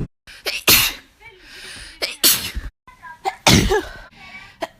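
People sneezing: three loud, sudden sneezes about a second and a half apart, with brief voices between them.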